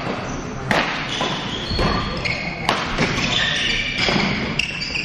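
Badminton rally: rackets striking the shuttlecock in a quick series of sharp hits, with short high squeaks from shoes on the court floor.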